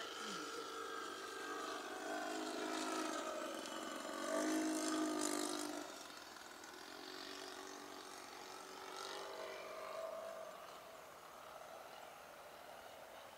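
Radio-control P-51 model plane with an O.S. 91 Surpass four-stroke glow engine flying past. The engine's pitch slides as it passes. It is loudest from about four to six seconds in, then fades off.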